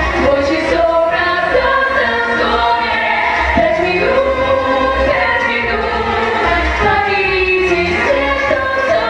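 A vocal group singing a pop song live into microphones, several voices together in harmony, over instrumental accompaniment with a steady low beat.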